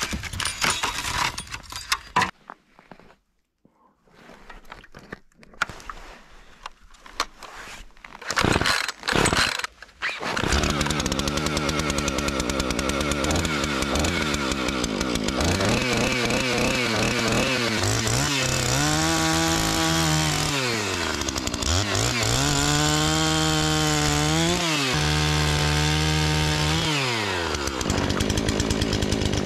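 Husqvarna gas chainsaw. After some knocking and clatter it starts about ten seconds in, then runs loudly, its engine speed rising and falling again and again.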